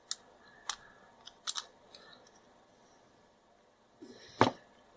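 Small sharp clicks and scrapes of a rocker light switch's plastic and metal parts being handled while a blackened contact is cleaned, with one louder click near the end.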